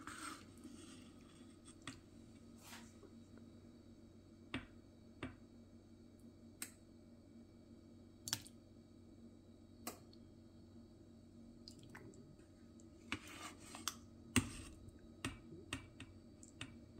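Faint, scattered clicks and taps of a serving spoon against an Instant Pot's stainless-steel inner pot and a bowl as curry is scooped out, with a quick run of taps near the end. A low steady hum lies underneath.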